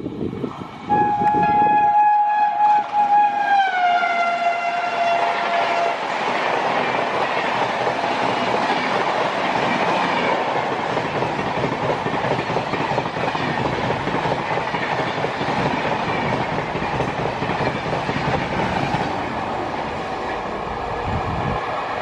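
High-speed express train passing close by: the locomotive's horn sounds for about five seconds and drops in pitch as it goes past, then the coaches rush by in a long, steady roar of wheel and wind noise.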